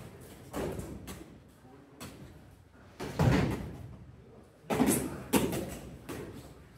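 Heavy impacts of armoured full-contact knightly combat: strikes and collisions on steel armour and shields. The loudest hit lands about three seconds in, and two more follow close together near five seconds.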